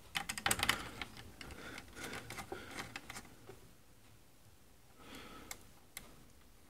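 Light clicks and taps of a multimeter test probe against the metal screw terminals of a 12 V switching power supply, several in quick succession over the first three seconds, then one more click near the end.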